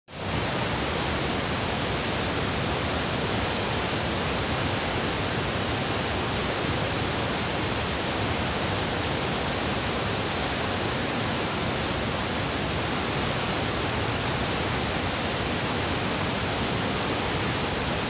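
Waterfall pouring over a rock cliff into a pool, a steady, unbroken rush of falling water.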